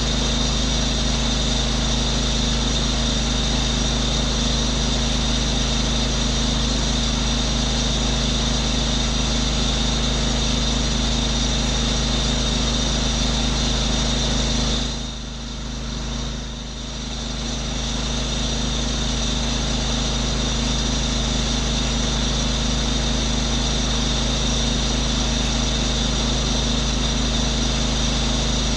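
Pressure washer's engine and pump running steadily, with a brief dip in level just past halfway.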